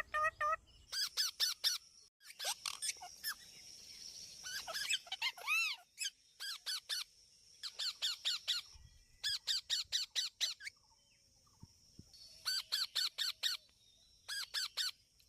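Parrots calling in bursts of three to six quick, high, harsh notes, a burst every second or two with short pauses between.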